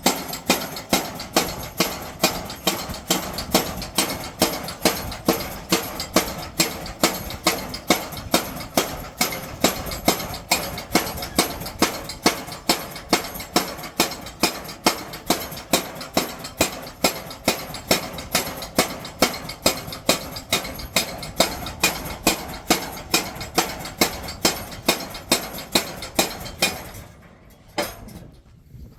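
Steady, rhythmic hammer blows on metal, about two strikes a second, as steel is forged into knife blades; the hammering stops near the end.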